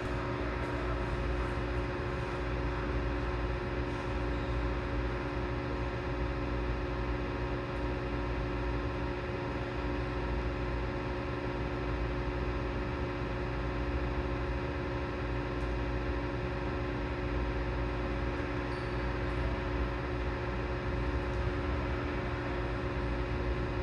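Steady low machine hum with a deep rumble and several constant tones in it, unchanging throughout.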